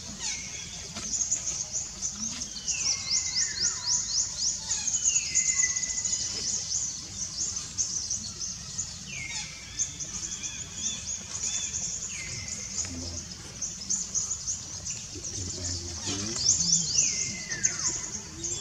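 Birds calling outdoors: whistled calls every few seconds that slide down in pitch, over a steady high-pitched chirping chatter.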